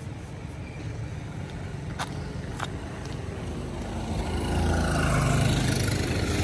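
A motor vehicle's engine running, growing steadily louder through the second half. Two sharp clicks sound a little over half a second apart near the middle.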